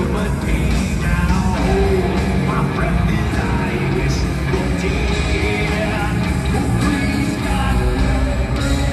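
Heavy metal band playing live, heard loud and steady from the stands of an arena.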